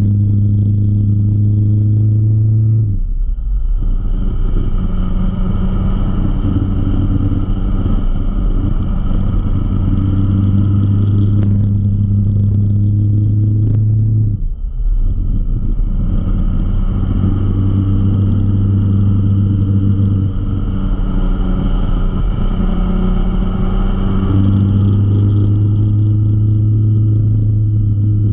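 Motorcycle engine running at a steady cruise, heard from on board with wind and road noise. The throttle eases off briefly twice, about three seconds in and about halfway through, then the engine picks up again.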